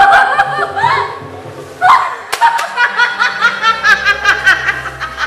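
A woman laughing loudly: a rising voiced cry near the start, then from about two seconds in a run of quick, rhythmic ha-ha bursts.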